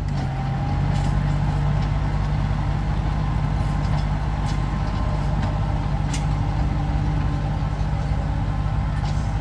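Tractor engine of a bed-forming and plastic-mulch-laying machine running steadily, a low even hum with a few light clicks.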